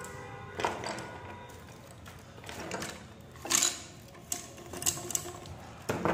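Bangles clinking and clacking against each other as they are handled and stacked on a bangle stand: a few separate sharp clinks with a bright ringing edge, the loudest about halfway through.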